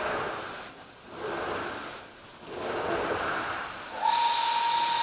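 A CNC finger bit grinding stone under water coolant. It gives a hissing grind that swells and fades twice, then about four seconds in a steady high spindle whine starts.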